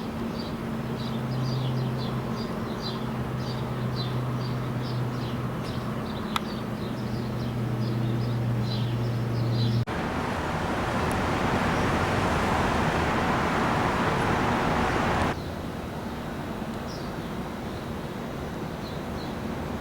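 Outdoor ambience: a steady low drone with rapid high chirping over it. About ten seconds in it cuts abruptly to about five seconds of loud rushing noise, then to quieter ambience with a few more chirps.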